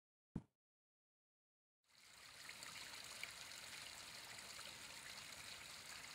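A short pop, then about two seconds in a faint, steady wash of shallow sea water lapping at the shore fades in, with small splashes.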